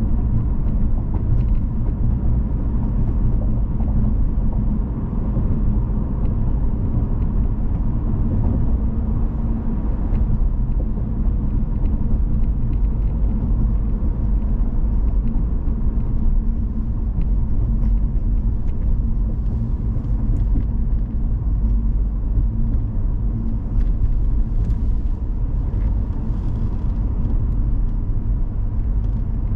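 A car driving at speed: steady low road rumble from tyres and engine, with no change in pace.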